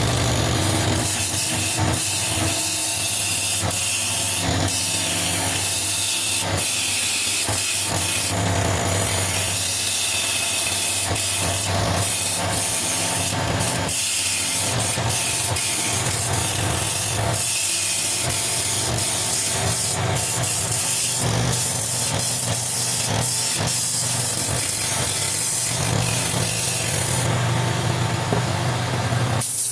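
Wood lathe running with a steady motor hum while a turning tool works the spinning wood, giving a continuous hissing scrape. The scraping eases off near the end.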